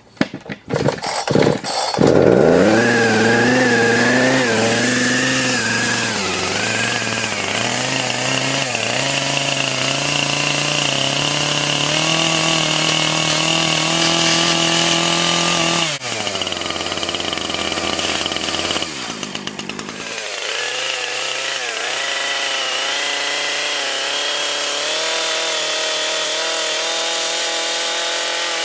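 A chainsaw engine starts up and runs at high revs, its pitch wavering up and down as it cuts into a smartphone clamped in a vise. Partway through, the revs drop off, then climb again.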